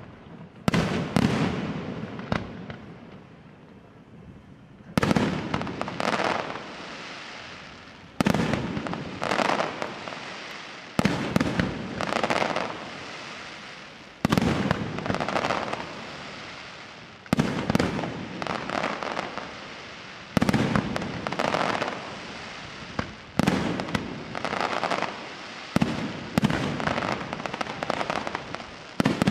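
Aerial firework shells bursting one after another, a sharp bang every two to three seconds. Each bang is followed by a few seconds of dense crackling that fades.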